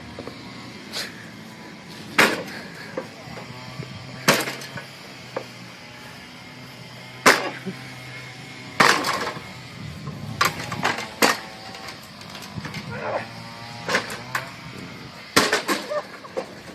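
About a dozen heavy blows on a metal lawn mower at irregular intervals, each a sharp bang, some followed by a brief metallic ring.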